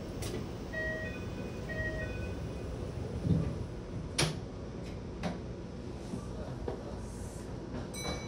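Steady low hum of a Kintetsu Ise-Shima Liner limited-express train standing at a platform, heard inside its driver's cab. A short chime of a few notes sounds about a second in, then a thump about three seconds in, a sharp click soon after, and a few lighter clicks.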